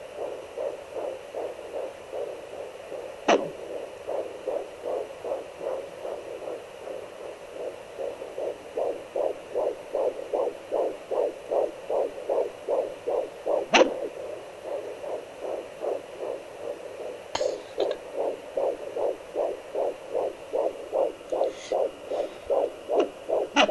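Handheld fetal doppler playing a fetal heartbeat at 13 weeks 5 days: a fast, even pulse of about two and a half beats a second. A few sharp thumps cut across it, about three, fourteen and seventeen seconds in and again near the end, which the mother takes for the baby moving.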